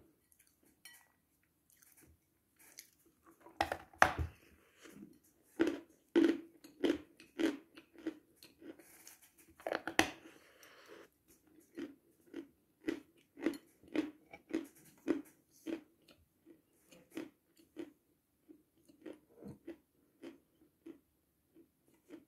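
Dry chalk being bitten and chewed close to the microphone. Loud crisp crunches come in the first half, then an even chewing of about two chews a second that grows fainter towards the end.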